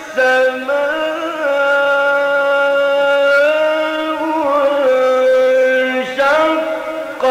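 A solo male voice reciting the Quran in the melodic mujawwad style, holding long notes and ornamenting them with turns of pitch. There are short pauses near the start and about six seconds in.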